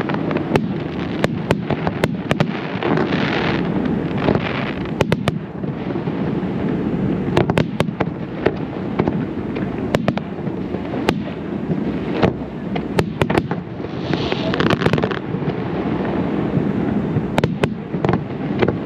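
Fireworks display: a rapid, irregular run of sharp shell bursts over a continuous rumble of echoing booms. There are hissing crackle spells about three seconds in and again near the fourteen-second mark.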